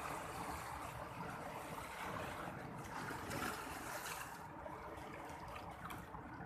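Sea water washing and lapping in a continuous rush, swelling a little about three seconds in.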